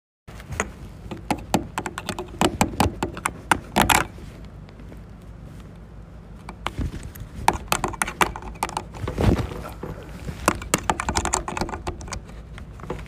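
Irregular clicking and tapping in quick clusters, pausing for a couple of seconds near the middle, over a steady low hum.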